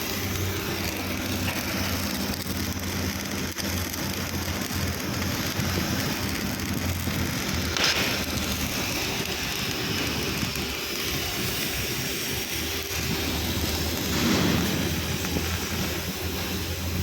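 Electric arc welding: a continuous crackle and sizzle of the arc over a steady low electrical hum, flaring briefly louder about eight seconds in and again near the end.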